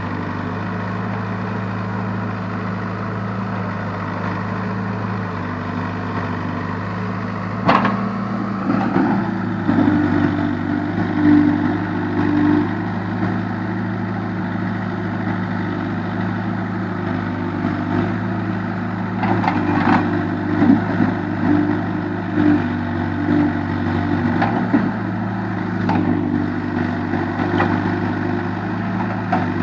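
Case backhoe loader's diesel engine running steadily. A sharp knock comes about eight seconds in, and intermittent clanks and rattles follow from the machine working.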